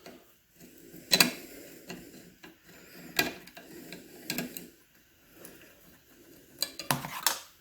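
Several sharp plastic-and-metal clicks with light rustling in between, as the kill switch's power and ground wire connectors are handled and pulled off.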